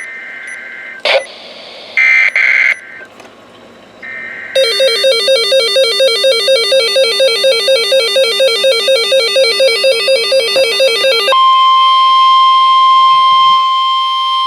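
NOAA Weather Radio emergency alert sequence: a few short buzzy data bursts, then rapid electronic alert beeping at about four beeps a second. Near the end the beeping switches to the steady 1050 Hz warning alarm tone, which signals that a warning message follows.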